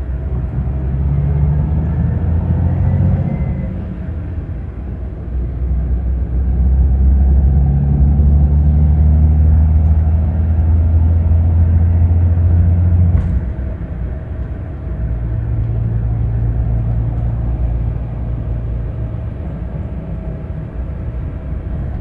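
Scania K360 coach's diesel engine running under load with a deep, steady rumble. Its pitch and loudness rise and hold for several seconds, then drop suddenly about two-thirds of the way in, with a short click, and it runs on at a lower note.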